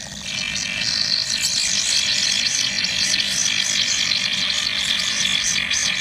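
Common kingfisher nestlings in the nest burrow giving a continuous, high, rasping buzz of begging calls.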